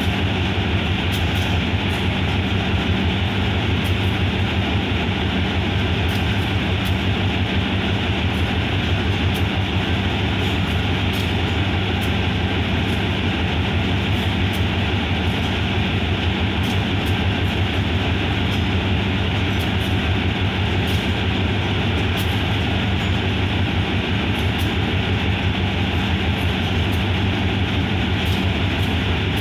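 GE diesel-electric locomotive idling while stopped at a station platform, its engine giving a steady low drone.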